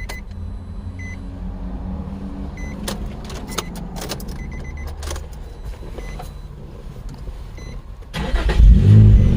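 2004 Nissan 350Z's 3.5-litre V6 catching and starting about eight seconds in, loud at first and then settling into a steady idle, now that the fuel pump has power again. Before it, a low steady hum with scattered clicks and a few faint short beeps.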